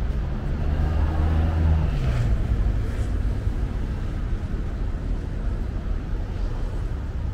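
Street traffic: a motor vehicle's engine hums close by for the first two seconds or so, then fades, leaving a steady low traffic rumble.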